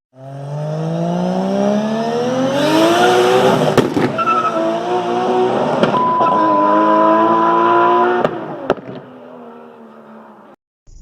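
Car engine revving up and held at high revs, with its wet drive belt squealing. The pitch climbs for about three seconds, holds, then drops back about eight seconds in.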